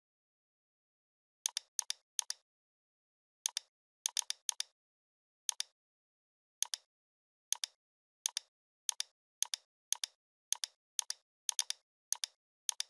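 Computer mouse clicks, about twenty in all, some single and some in quick pairs or threes, at uneven spacing with dead silence between them.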